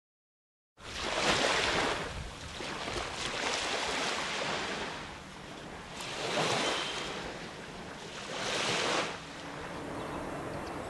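Sea surf washing onto a sandy beach, starting about a second in and swelling and falling about four times.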